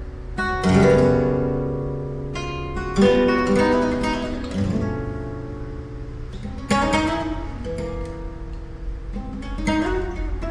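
Solo flamenco guitar playing por soleá: strummed chords, rasgueado, struck sharply a few times and left to ring and die away between them.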